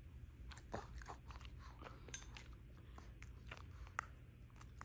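Shih Tzu dog chewing a piece of banana: faint, irregular small clicks and smacks of its mouth.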